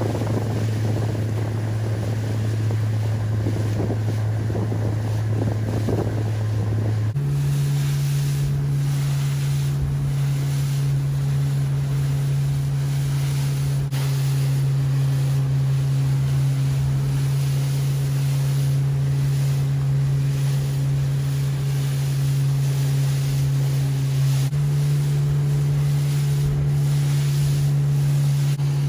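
Motorboat engine running with a steady hum. Its note steps up about seven seconds in, and at the same moment the loud rush of water beneath it dies away. Sea water lapping and wind buffeting the microphone run underneath.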